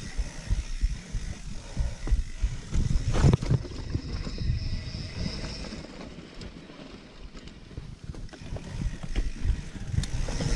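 Niner Jet mountain bike rolling over a dirt trail: a rough rumble of tyres and bike rattle with scattered knocks, the loudest about three seconds in, easing off for a couple of seconds near the middle.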